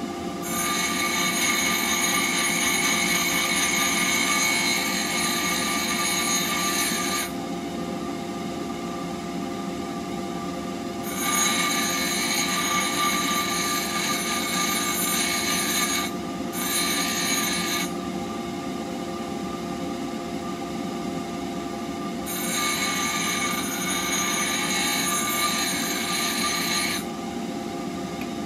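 Bench grinder running steadily while a steel turning-tool blade is ground against its wheel. The grinding hiss comes in three long passes, each several seconds long, and between them only the motor's steady hum of the free-spinning wheel is heard.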